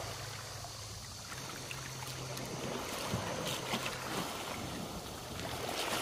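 Small waves washing over a pebble shore while bare feet splash through the ankle-deep shallows, with a faint low hum underneath.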